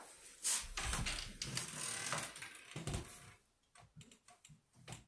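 Duvet and bedding rustling and creasing as a person lies down on a bed and wraps an arm around a cat. After about three seconds it dies down to a few soft clicks and rustles.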